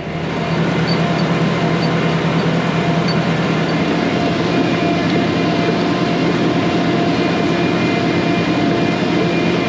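Tractor engine running steadily while driving through the field, heard from inside the cab: a constant drone with a steady low hum.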